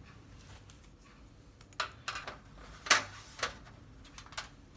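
Light clicks and taps of hard parts being handled as new LED backlight strips are set into the TV's back panel: about half a dozen sharp clicks in the second half, the loudest about three seconds in.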